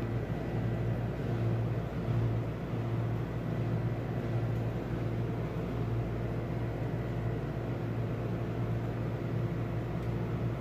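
Steady low machine hum with a faint hiss, its low drone swelling and easing slightly every second or two.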